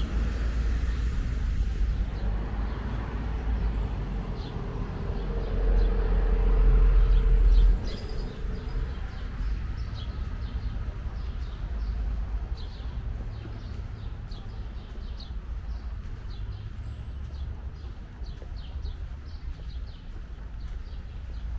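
Street ambience: a vehicle's low rumble swells and drops away about eight seconds in, then birds chirp repeatedly over faint background traffic.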